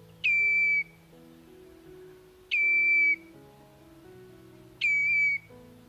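Ruff calling: three identical whistled calls, evenly spaced about two and a quarter seconds apart. Each one drops sharply in pitch and then holds a steady high note for about half a second.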